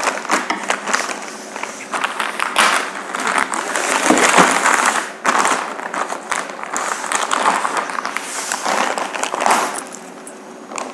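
Plastic courier mailer bag crinkling and rustling in uneven bursts as it is handled and opened with a knife.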